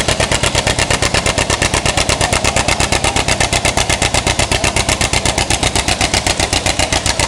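John Deere 720 gas tractor's two-cylinder engine running with a steady, even popping exhaust beat of about ten pops a second.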